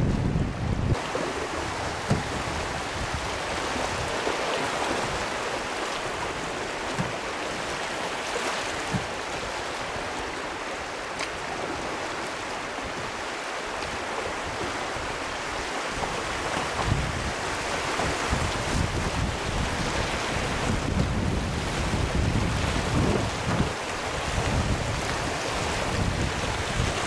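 Fast river water rushing and splashing around a canoe running through riffles. Wind buffets the microphone in low gusts, mostly in the second half.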